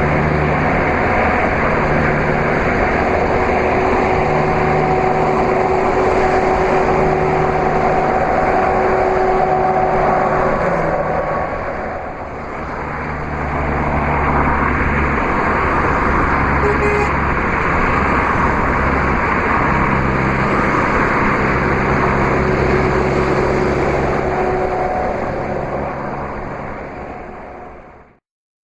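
Steady road and wind noise of a car at motorway speed, with a low engine drone under it. It dips briefly about twelve seconds in and cuts off abruptly just before the end.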